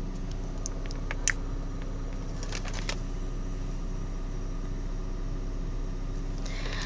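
Steady low rumble inside a car's cabin with the engine running, with a few light clicks and taps about a second in and again near the three-second mark.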